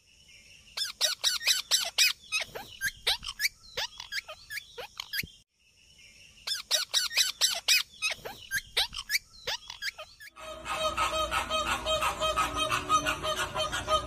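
Rose-ringed (ringneck) parakeets calling: rapid, shrill, down-slurred screeches in two bouts with a short pause between them. About ten seconds in, this gives way to a flock of flamingos honking together, a dense and continuous din.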